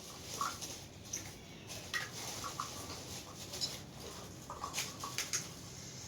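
Small plastic toys being handled: about ten scattered light clicks and short squeaky blips.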